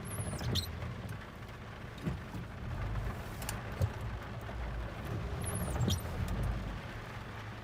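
Off-road vehicle running at low speed, a steady low rumble with a few knocks. Two brief high squeaks fall in pitch, one near the start and one about five and a half seconds in.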